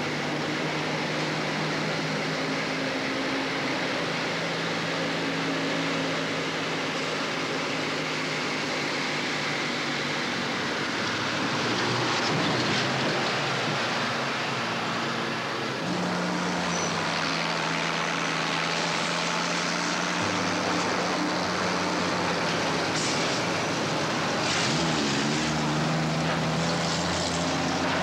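Heavy dump truck engine running, its pitch holding steady and then stepping to a new level every few seconds as the truck drives, with a few sharp clanks near the end.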